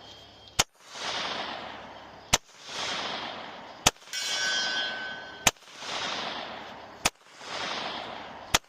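Six pistol shots about a second and a half apart, each followed by a rolling echo. After the fourth shot, a steel target rings with a clear metallic tone for about a second.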